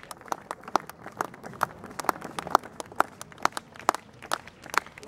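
Spectators clapping in time, a little over two claps a second, with some hands falling between the beats.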